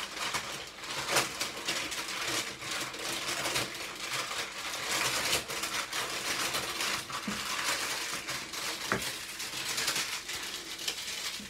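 Brown baking paper crinkling and rustling as it is folded and wrapped by hand, with many small crackles throughout.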